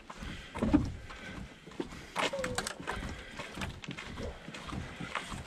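Footsteps on a dirt trail at a steady walking pace, about two steps a second, from a person carrying a canoe overhead, with a short falling squeak-like tone about two seconds in.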